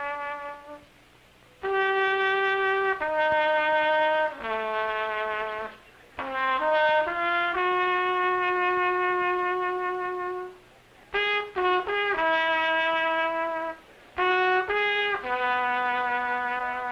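Background music: a slow unaccompanied melody on a single brass instrument, mostly long held notes with short breaks between phrases and a few quick notes about two-thirds of the way in.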